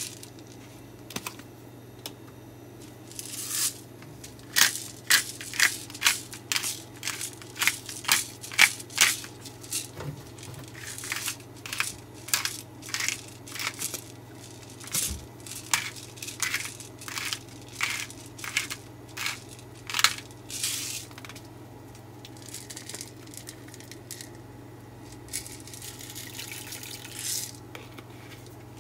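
Black pepper grinder being twisted by hand, cracking whole peppercorns: a long run of short rasping crunches, about two a second, then a softer, longer stretch of grinding near the end.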